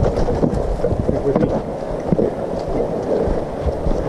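Continuous rustling and scuffing of walking through dry fallen leaves, with frequent knocks and rubbing close to the microphone.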